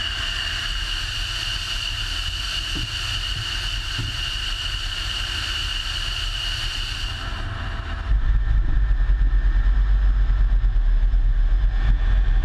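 F-16 jet engine heard from the cockpit, first running with a steady high turbine whine. About eight seconds in, the whine drops away and a much louder low rumble takes over as the power comes up for the takeoff roll.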